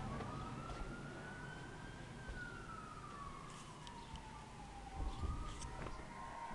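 Siren in a slow wail, faint, its pitch rising for about two seconds, falling for about three, then starting to rise again near the end.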